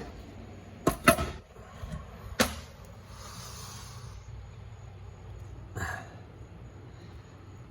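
A few sharp metal knocks and clinks as transmission parts and a spring compressor tool are shifted to centre them: two close together about a second in, the loudest of all, another a second later and a weaker one near six seconds.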